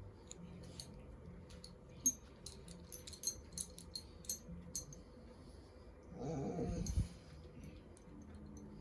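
Plastic Lego pieces clicking and clattering, about a dozen sharp clicks over a few seconds. Then a brief low vocal sound of under a second.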